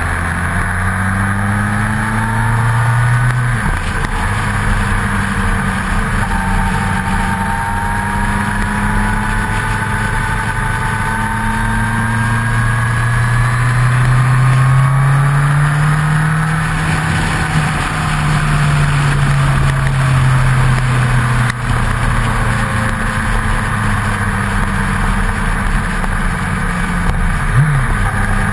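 Motorcycle engine running at road speed, its pitch climbing under acceleration and stepping down at gear changes about three seconds in and again about halfway, over steady wind and road noise.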